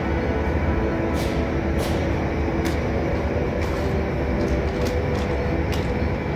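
Steady mechanical drone with a low rumble and several steady hum tones, heard through terminal glass, with a few short, faint hissing clicks scattered through it.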